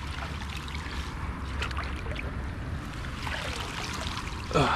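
Steady low wind rumble on the microphone with faint water trickling at the lake edge, and a short falling groan from a person near the end.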